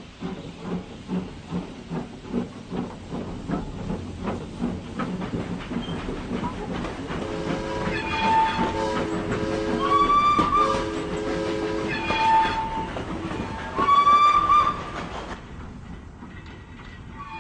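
Steam locomotive running, its exhaust chuffing at about two to three beats a second, then a series of train whistle blasts in several pitches, the last one the loudest, before the sound fades.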